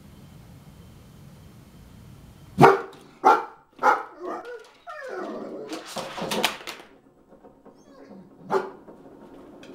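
Dalmatian barking at a dog it has spotted outside: three sharp barks in quick succession about two and a half seconds in, then a couple of seconds of rougher, noisier barking, and one more bark near the end.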